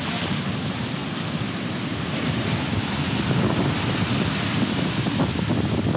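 Ocean surf breaking and washing up a beach, with wind buffeting the microphone.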